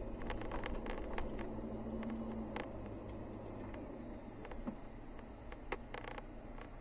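A vehicle driving: a steady low engine drone with road noise, and scattered sharp clicks and light knocks, a few of them near the end close together.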